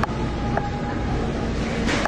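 Shopping cart rolling along a hard store floor: a steady rumble of the wheels and wire basket, with a sharp click right at the start and another near the end.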